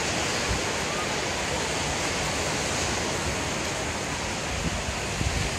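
Steady rush of sea surf on a beach.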